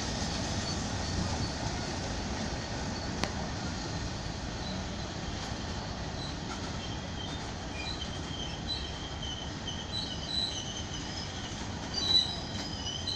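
Indian Railways freight wagons rolling slowly past as the train crosses onto another track. The steel wheels make a steady rumble on the rails, with short high wheel squeals that come more often in the second half, and one sharp click about three seconds in.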